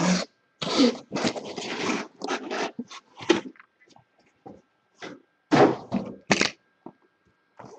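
Irregular rustling and tearing of packaging, in a run of short noisy bursts, then two more bursts a couple of seconds later.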